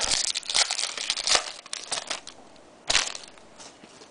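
Foil trading-card pack wrapper being crinkled and crumpled in the hands as the pack is opened: a run of sharp crackles and rustles, with one louder crackle about three seconds in.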